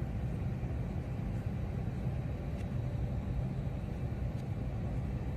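A steady low rumble of outdoor noise, with no distinct events.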